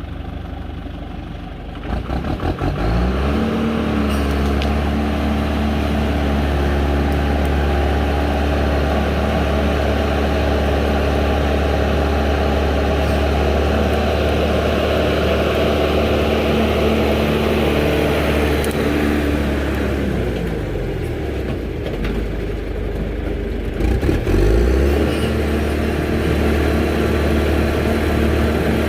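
An engine running near idle, revving up about two seconds in and holding a steady high speed. It drops back down about two-thirds of the way through and revs up again a few seconds later.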